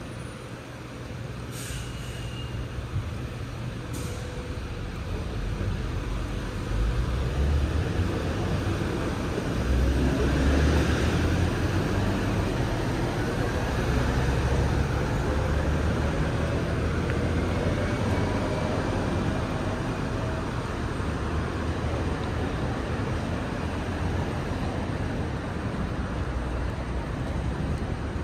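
Road traffic: a steady low rumble of passing vehicles, with one heavy engine building to its loudest about ten seconds in and its pitch slowly rising after that. Two short, sharp ticks sound in the first few seconds.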